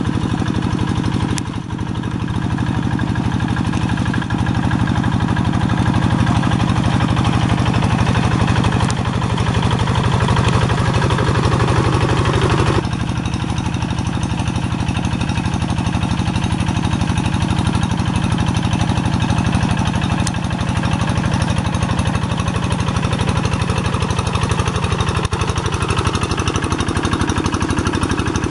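Kubota single-cylinder diesel engine of a two-wheel walking tractor running steadily under load as the tractor works through flooded rice-paddy mud. The engine pulses are close-set and even, and the sound shifts slightly about 13 seconds in.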